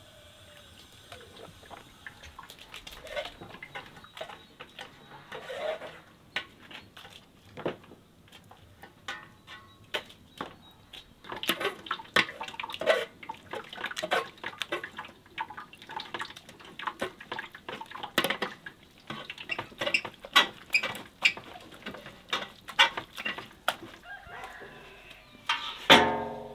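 Clinks and scrapes of an enamel bowl scooping from a large metal cooking pot, with hens clucking in the background. A loud clank comes near the end.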